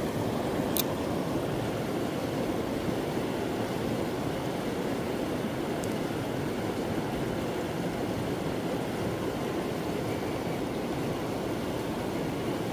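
Steady rush of creek water tumbling over and below a low dam spillway, with a single sharp click about a second in.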